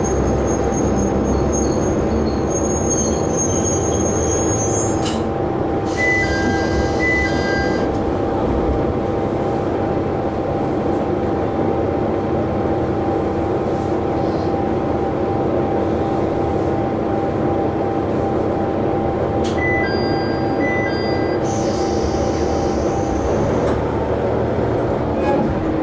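Diesel railcar's engine idling with a steady hum, heard inside the passenger cabin while the train stands still. Short high beeps come twice, a few seconds in and again about two-thirds of the way through, and the hum changes near the end.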